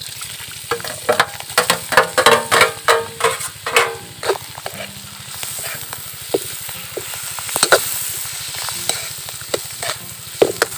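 Mussel meat frying in butter and browned garlic in a metal wok, sizzling while a spatula scrapes and clinks against the pan as it is stirred. The scraping is busiest in the first few seconds, then thins to occasional strokes over a steady sizzle.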